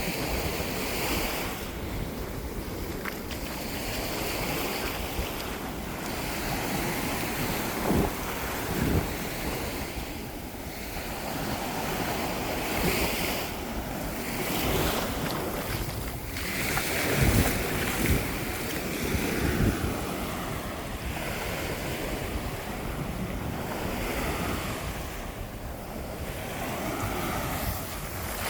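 Ocean waves breaking and washing up the beach, with gusty wind buffeting the microphone in low rumbles that swell and fade several times.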